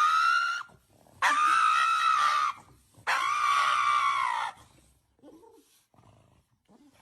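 A pet animal giving three long, drawn-out, high calls, each gently arching in pitch and lasting over a second. The first is already under way at the start and ends about half a second in; the next two follow about a second apart. Only faint small noises come after them.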